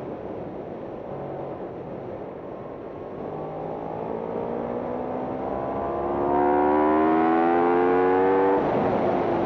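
Racing motorcycle engine under hard acceleration, pitch climbing steadily and growing louder, then dropping suddenly near the end as the revs fall away. Wind rush over the onboard microphone throughout.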